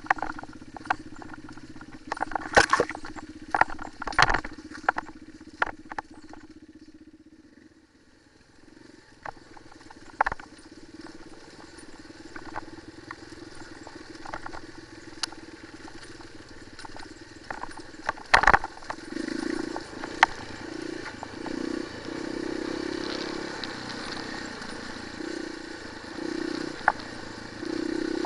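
Single-cylinder enduro motorcycle engine running at low revs over rocky ground, with many sharp clatters and knocks from the bike and stones. After a brief fade, one loud knock, then the engine picking up in repeated throttle bursts.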